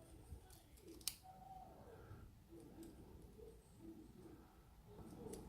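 Faint small metallic clicks and light handling noise from a lock cylinder being worked with a shim, with one sharper click about a second in.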